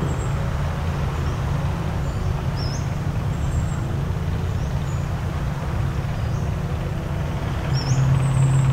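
A steady low drone, louder from about eight seconds in, over a rushing surf-like hiss, with two short high bird chirps.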